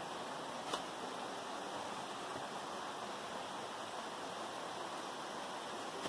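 Steady rushing of a waterfall, with a single short click about a second in.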